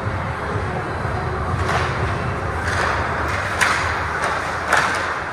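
Ice hockey play in a large indoor rink: several short, sharp scrapes and clacks of skates, sticks and puck on the ice, about a second apart, over a steady low rumble of the arena.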